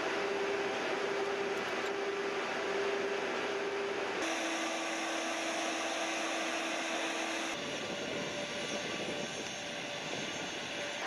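Steady machinery hum from military vehicles and their on-board equipment: a held tone over a noisy running sound. The pitch and character change abruptly twice, about four seconds in and again past halfway.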